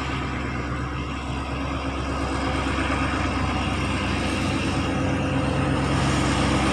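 Diesel locomotive hauling a passenger train as it approaches, its engine drone growing steadily louder.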